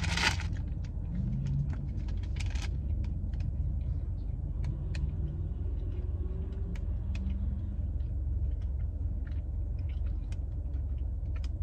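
Steady low rumble of a car idling, heard from inside the cabin, with scattered small clicks and crunches of a person eating a cookie. There is a spell of paper rustling near the start.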